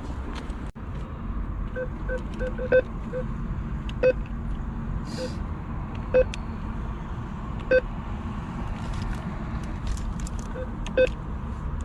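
Cash machine keypad beeping as its buttons are pressed: about a dozen short, identical beeps at an uneven pace, a quick run of them near the start, then single ones spaced out. A steady low rumble lies underneath.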